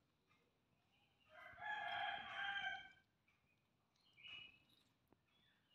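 A rooster crowing once, a long call of about a second and a half, followed about a second later by a shorter, fainter call.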